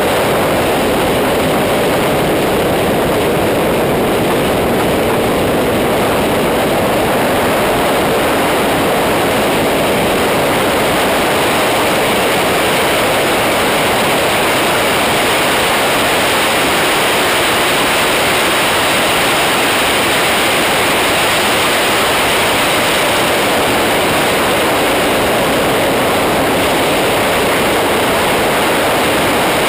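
Steady, loud wind roar over the microphone of a camera mounted on a Kawasaki ZX-10R sportbike riding at speed, with no distinct engine note standing out and no change in level.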